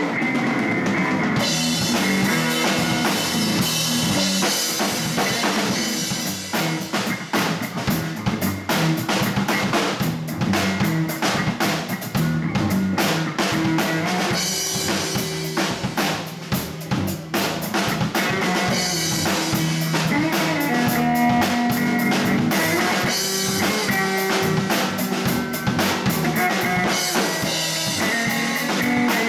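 Live blues band playing an instrumental passage on drum kit, electric bass and electric guitar, with the drums to the fore.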